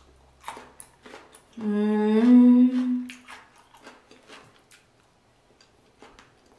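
A woman humming a long closed-mouth "mmm" of relish while eating, one hum starting about one and a half seconds in and rising slightly in pitch, with faint small clicks of eating around it.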